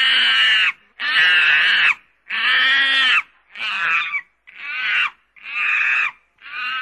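A monkey's high-pitched cries, about seven in a row at roughly one a second. The first three are longer and louder, and the later ones are shorter.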